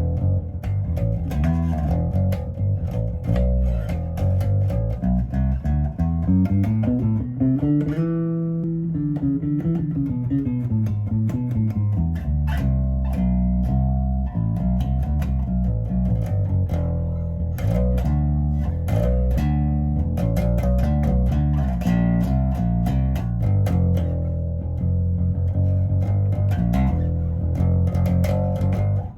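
Rickenbacker 4003 electric bass played through an Aguilar Tone Hammer 500 amp with both pickups on, picking out a line of plucked notes. About a quarter of the way in, the pitch slides up the neck and glides back down before the line carries on.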